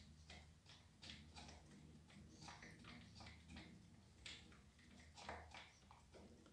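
Faint, uneven metallic clicks and ticks, a few a second, as the size-17 overflow valve fitting is unscrewed by hand from the brass pump of a Kärcher HD 5/15 C pressure washer. A low steady hum lies under them.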